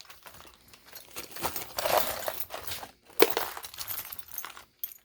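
Metal sewing machine presser feet clinking and rattling as they are handled and dropped into a box, with one sharper knock about three seconds in.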